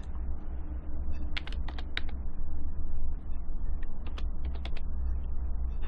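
Computer keyboard being typed on, short runs of key clicks about a second and a half in and again around four seconds in, over a steady low hum.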